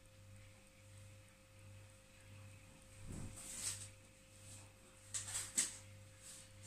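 Faint steady hum with a thin steady tone, broken by a few soft rustles and clicks of handling about three seconds in and again around five seconds, the loudest a sharp click near the end.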